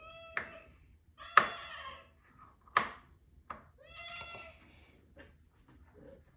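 A cat meowing a few short times, mixed with sharp clinks of a spoon knocking against a mixing bowl while stirring, the loudest clink about a second and a half in.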